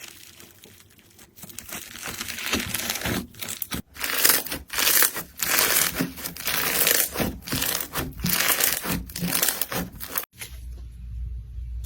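Slime being squeezed and pressed by hand, giving dense crackling and crunching. It cuts off suddenly about ten seconds in, and a low rumble follows.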